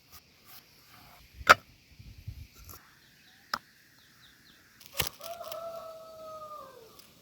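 A few sharp knocks, the loudest about a second and a half in, then a rooster crows once near the end: one long call that holds its pitch and falls away at its close.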